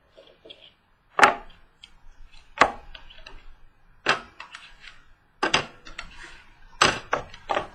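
A trading-card box being opened and handled: a series of sharp taps and knocks, about one every second and a half, with light rustling between them.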